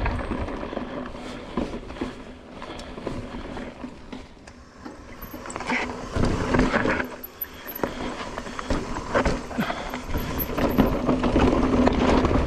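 Mountain bike descending a rough, rocky downhill trail: tyres rolling over rock and dirt while the chain and frame rattle over the bumps, with many sharp knocks. It gets louder and busier in the second half.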